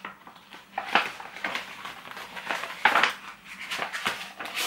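Paper sheets and packaging rustling and crinkling as they are handled and pulled out of a pack, with a few louder rustles, the loudest about three seconds in.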